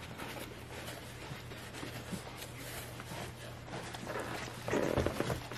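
Towel and whelping-pad bedding rustling and rubbing under a person's handling, with small scuffs and a louder stretch of rubbing near the end, over a steady low hum.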